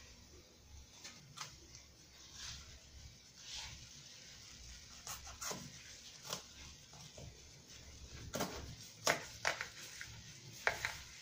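Small kitchen knife scraping and tapping on a wooden cutting board as the skin of a roasted nopal toro pad is cut and peeled away by hand: scattered soft clicks and scrapes, louder and more frequent near the end.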